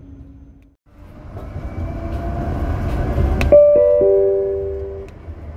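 Berlin tram running, a low rumble growing louder. About three and a half seconds in, a short chime of falling notes rings out and fades: the on-board gong that comes just before a stop announcement.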